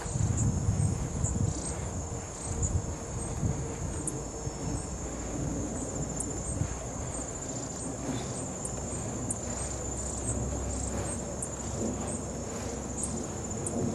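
Steady high-pitched chorus of summer insects, with a low rumble in the first few seconds.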